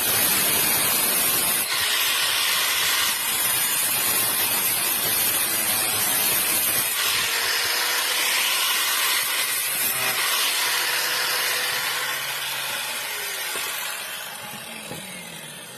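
Steady, loud hissing noise that changes in character every few seconds and fades out near the end.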